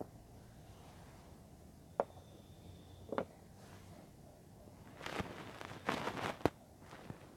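Close-miked ASMR handling sounds on a mini microphone: two single sharp taps a second or so apart, then a burst of crackly rustling mixed with taps.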